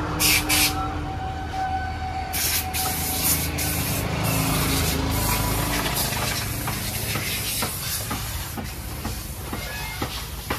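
High-pressure water jet spraying against a mud-covered tractor: two short blasts in the first second, then a steady hissing spray from about two seconds in, over a continuous low hum.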